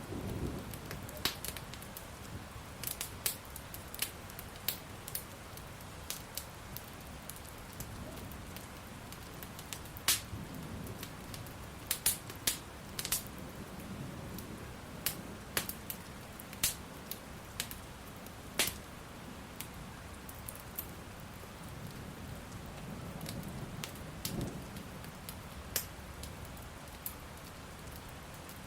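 Wood fire crackling with sharp, irregular pops over a steady hiss of rain, with a low rumble of distant thunder swelling a few times.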